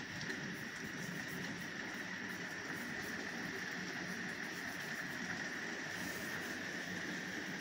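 Heavy rain falling steadily during a thunderstorm, a constant hiss with no thunder claps.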